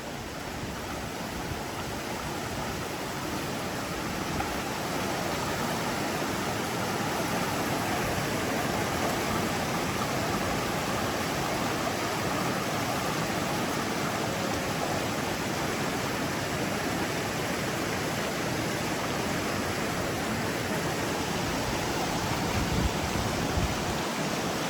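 Steady rush of falling water at a waterfall, growing a little louder over the first few seconds and then holding even.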